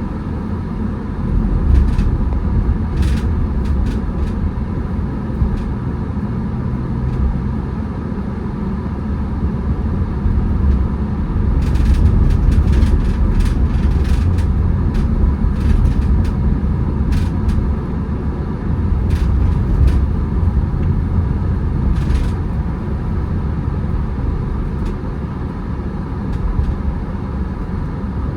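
Car driving on the road: a steady low rumble of engine and tyres, with scattered light clicks and ticks, a cluster of them about halfway through.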